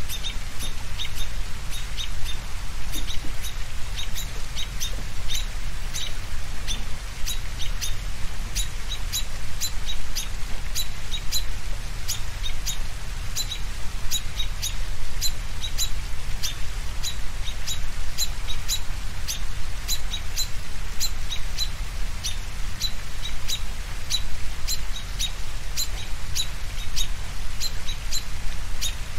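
Birds chirping with short high calls, two or three a second, over a steady low rumble.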